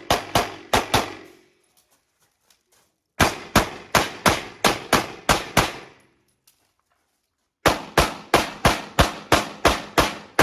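Pistol shots fired in quick strings of about three or four a second, in three bursts with silent pauses between them: a practical-shooting stage run against the timer.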